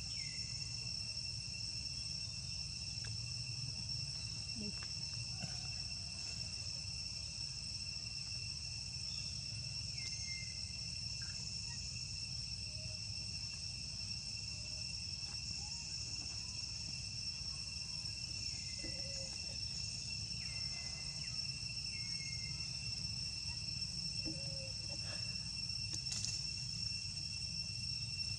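Steady chorus of forest insects: a continuous high whine at two pitches, over a low background rumble, with a few faint short chirps now and then.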